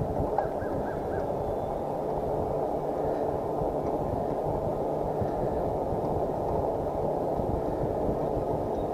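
Steady rumbling wind-and-road noise on the microphone of a moving e-bike, with no clear pitch. Four short, faint high chirps come about half a second in.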